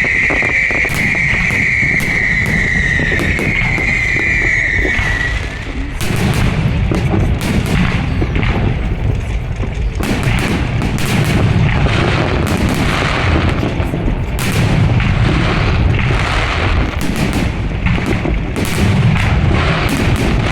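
Fireworks display: a dense run of bangs and crackles with low booms from about six seconds in, swelling and easing in waves. Before that, a high steady tone drifts slightly down and stops about five seconds in.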